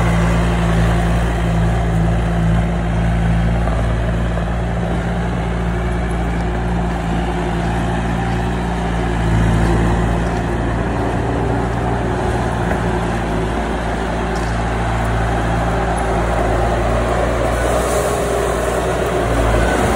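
An engine running steadily at an even speed with a low hum.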